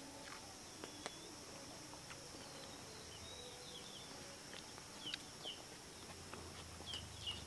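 Quiet outdoor ambience: faint bird chirps, short falling notes heard several times from midway on, over a steady high insect hum.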